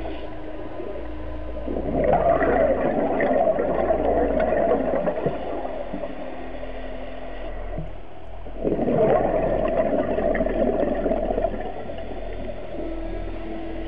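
Scuba diver's regulator exhaust bubbles heard underwater: two bursts of bubbling, each about three seconds long, about two and nine seconds in, with a quieter stretch between them.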